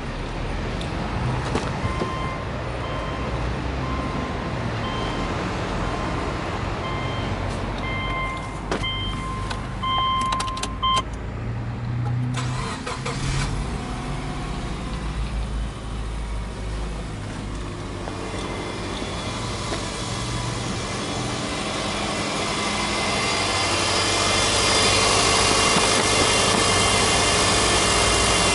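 A car's electronic warning chime beeps steadily, with a few clicks. About 12 seconds in, a Subaru Legacy's 2.0-litre EJ20 flat-four (boxer) engine is cranked and starts, then idles. Near the end the idle is heard louder and plainer, from the open engine bay.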